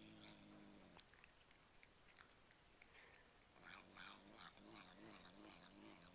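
Cat chewing crunchy cat treats with his mouth full while vocalising, a low wavering growl-like sound that rises and falls like "yum yum yum". The vocalising fills the first second, then gives way to crunching clicks, and starts again a little past halfway.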